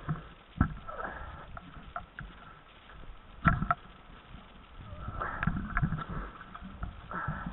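Mountain bike jolting over a snowy trail: a few sharp knocks and rattles from the bike and its camera mount, with a soft rushing noise that swells twice.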